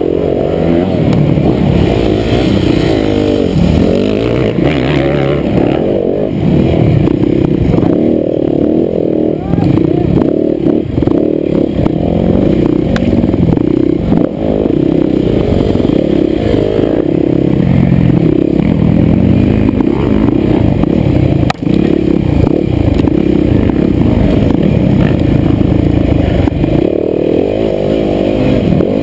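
Dirt bike engine revving up and down without a break as it is ridden hard over a rough, twisting woods trail, heard close up from the rider's helmet camera.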